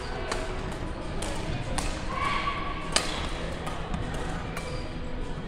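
Badminton singles rally: rackets striking the shuttlecock in sharp clicks roughly every second, the loudest hit about three seconds in. A short squeak comes just before it.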